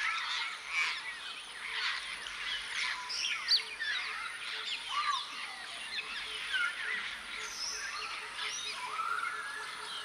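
A flock of African grey parrots calling: many overlapping short whistles rising and falling in pitch.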